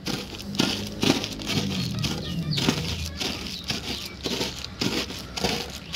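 Marie biscuits being crushed by hand inside a plastic bag: the bag crinkles and the biscuit pieces crunch with each press, in a run of irregular strokes.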